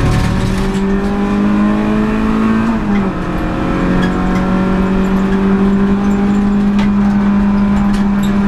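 Renault Clio Sport 182's two-litre four-cylinder engine at high revs, heard from inside the cabin under hard acceleration. The note climbs steadily, drops sharply at an upshift about three seconds in, then climbs slowly again.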